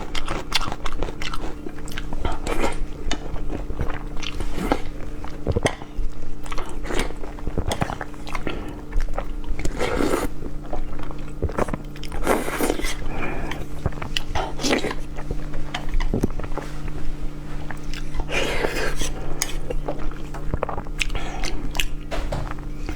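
Close-miked eating: a person chewing and biting spicy instant noodles, with wet mouth smacks and crunchy bites, over a steady low hum.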